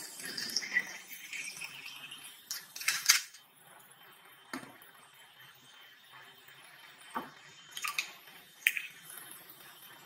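Fizzy soda poured from a plastic bottle into a glass for about two seconds, followed by a loud clatter about three seconds in and several single clinks and knocks of the glass and a ceramic bowl being handled on the table.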